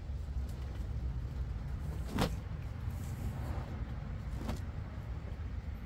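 A steady low rumble in the background, with two brief knocks from a ceramic pot being handled while soil is firmed around a succulent, the louder one about two seconds in and a softer one a couple of seconds later.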